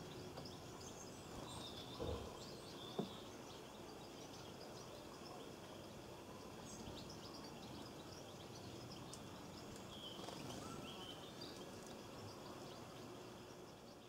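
Quiet outdoor ambience with European goldfinches giving short, high twittering calls now and then. Two soft knocks sound about two and three seconds in.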